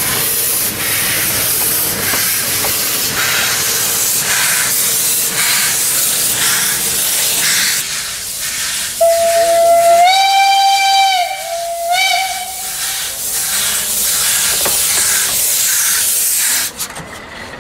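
Narrow-gauge steam locomotive 898.01 hissing loudly with escaping steam. About nine seconds in, its steam whistle gives a long blast that rises slightly in pitch, then a second, shorter blast.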